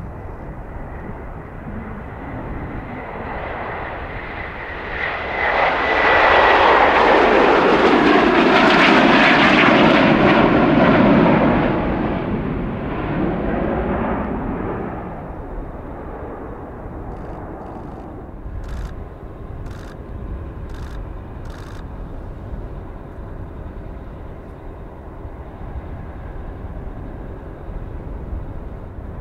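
Bombardier Global 7500's twin GE Passport turbofans taking off: a high steady whine at first, then the jet noise swells about five seconds in, is loudest for several seconds as the jet lifts off and passes, and fades as it climbs away. Later come four sharp clicks about a second apart.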